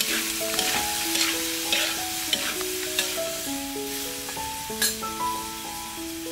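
Chicken gizzards sizzling in a metal wok while a metal ladle scrapes and knocks against the pan several times, the sharpest knock near five seconds in. Soft background music of held notes plays under it.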